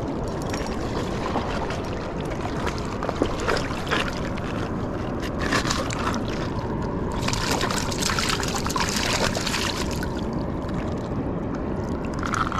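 Water splashing as a hooked walleye is drawn through rocky shallows and grabbed by hand, loudest for a few seconds past the middle, over a steady rush of wind and river water.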